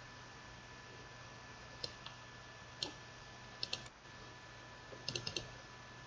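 Computer mouse button clicks while navigating folders: about eight short, sharp clicks, several of them in quick pairs as double-clicks. They sit over a faint steady electrical hum.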